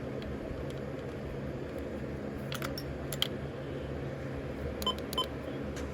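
Steady low hum of background noise, with a few sharp clicks about halfway through and two quick short beeps near the end.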